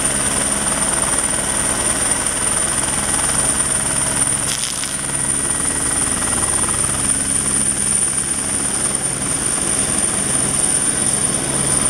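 Helicopter hovering and flying close by: a steady, fast rotor beat with a high, steady whine over it.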